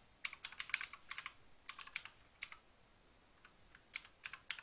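Computer keyboard typing: quick runs of key clicks, a pause of about a second and a half, then a few more keystrokes near the end.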